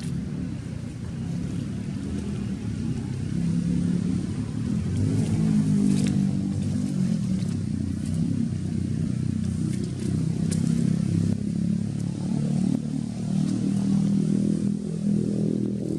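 A low engine rumble, like a motorcycle running nearby, with its pitch wavering slightly and growing louder over the first few seconds. A few faint sharp clicks sound over it.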